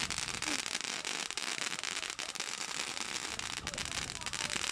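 Firework going off at ground level and spraying sparks: a dense, continuous crackle of many small rapid pops.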